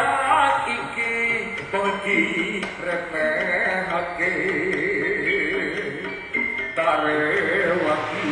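Live Javanese jaranan music from the troupe's ensemble: a melody that wavers up and down in pitch over percussion strikes.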